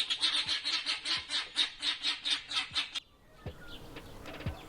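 Helmeted guineafowl calling in a rapid, harsh chatter of about five sharp notes a second, which cuts off suddenly about three seconds in. Faint bird chirps follow.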